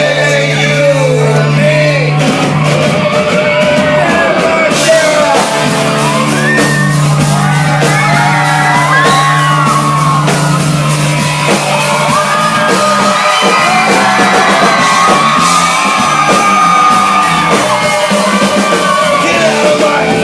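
Live punk rock band playing loud, with shouted and sung vocals over distorted guitar, bass and drums. The cymbals come in harder about five seconds in.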